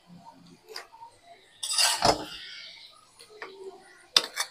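A utensil scraping and clinking against a metal pan of cooked mutton keema, with a louder knock about two seconds in and a few sharp clinks near the end.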